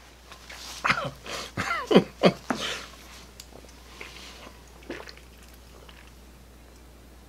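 A person's mouth and throat sounds after eating: a few short throaty grunts and clearing noises in the first three seconds, then faint clicks and swallows while drinking from a can of soda.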